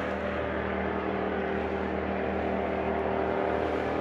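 An engine running steadily at an even pitch, over a haze of noise.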